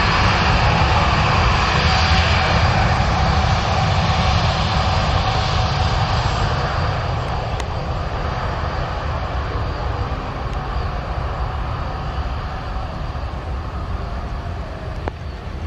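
Jet airliner's engines running loud as the plane passes, with a faint steady whine, the noise slowly fading away.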